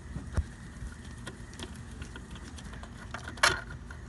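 Scattered small metal clicks and clinks of hand tools on the alternator's fasteners as a screw is worked out, with a louder rattling cluster about three and a half seconds in.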